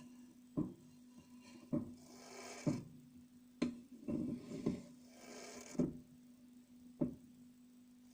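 Snail "snoring": soft hissing swells about every three seconds, with sharp little clicks about once a second, over a steady low hum.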